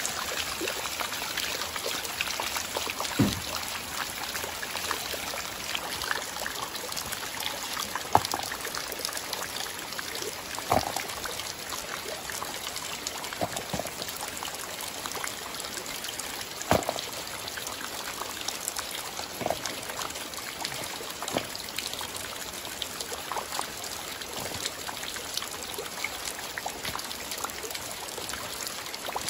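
Rainwater trickling and pouring steadily as mangoes are washed in it, with a few short splashes.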